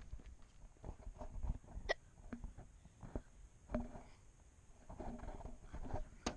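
A person hiccupping: several short, sudden hiccups at irregular gaps of a second or more.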